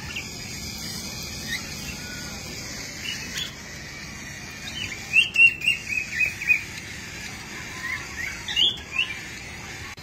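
Cockatiels chirping: short rising chirps, with a quick run of about eight in the middle and a few more near the end, over a steady hiss.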